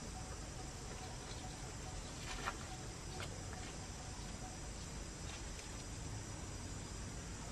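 Steady outdoor background noise with a low rumble, broken by a few faint short chirps or clicks, the clearest about two and a half seconds in.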